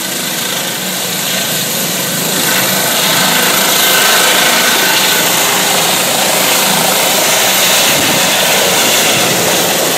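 Air-ambulance helicopter lifting off: turbine and rotor noise growing louder over the first few seconds as it rises, then holding steady.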